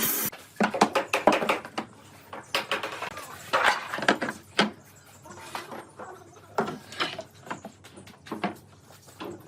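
Irregular knocks, clicks and short scrapes of wood and tools being handled, with a few louder scraping stretches a few seconds in.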